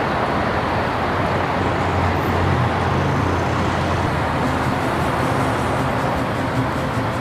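Steady city traffic noise from road vehicles, with a low hum throughout.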